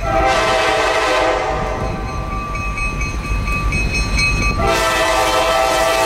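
Diesel locomotive's multi-chime air horn sounding for a road crossing: a long blast that weakens after about a second and a half, then a second long blast starting about four and a half seconds in, over the low rumble of the approaching train.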